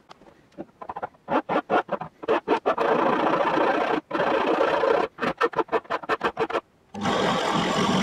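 A hand file rasping back and forth across the rusty metal of an old padlock body, in quick strokes that at times run together. About seven seconds in, a drill press starts running steadily, drilling into the lock body.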